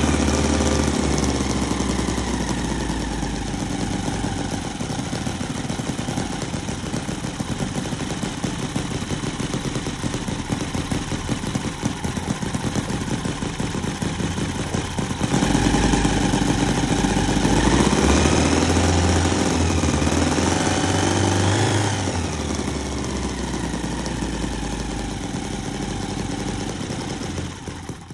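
Cison miniature V-twin four-stroke engine running steadily while belt-driving a small DC generator. About halfway through it turns louder and faster for several seconds, its pitch rising and falling, then settles back.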